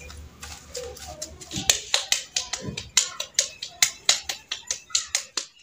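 Wet hands patting and pressing a ball of freshly drained paneer curd (chenna) between the palms: a run of sharp pats, about four a second, starting about a second and a half in.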